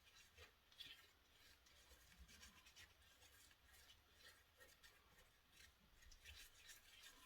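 Near silence with faint, irregular scratchy strokes of a small paintbrush dabbing gold colour into a phone-holder mould.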